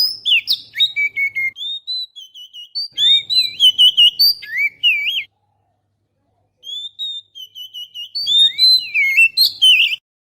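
Oriental magpie-robin (kacer) song played as a bird-trapping lure: rapid, varied whistled phrases and trills, loud and clear, in bursts broken by a silent gap of about a second and a half past the middle.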